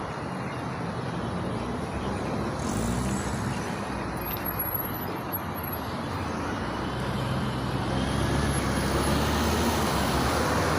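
NefAZ 5299 city bus with its Cummins ISBe diesel engine running over steady road noise, growing louder about seven seconds in as the engine picks up.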